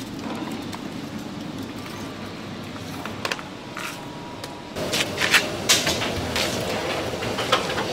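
Steady background noise with scattered sharp clicks and knocks, a cluster of them about five seconds in and another near the end.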